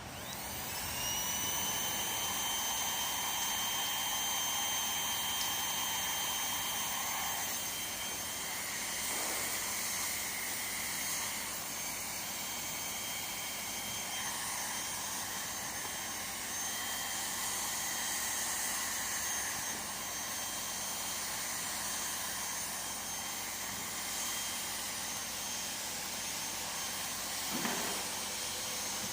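Handheld hot air gun blowing, a steady rushing hiss with a high fan-motor whine that rises as it spins up in the first second and then holds, as it heats a patch onto a torn PVC canopy.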